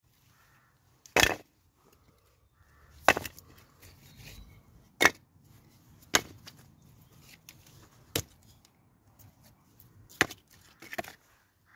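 Split firewood pieces being set down one at a time onto a stack, a sharp wooden clack about every two seconds, seven in all.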